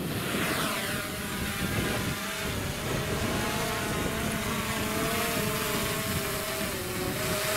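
Small folding quadcopter drone lifting off the ground and hovering, its propellers making a steady buzzing whine.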